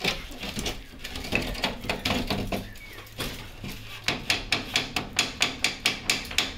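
Rapid knocking and clattering as an old multi-pane metal window frame is worked loose from its brick wall opening. The knocks are irregular at first, then from about four seconds in settle into a steady run of about four a second.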